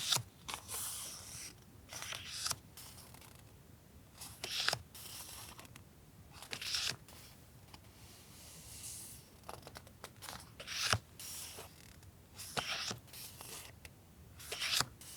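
Paper and stationery being handled: intermittent rustling and crinkling in short bursts, a few seconds apart.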